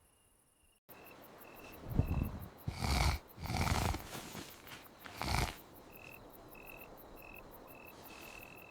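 Night-time insect ambience of crickets chirping in an even pulse, with four loud snoring sounds from sleeping cartoon animals in the middle.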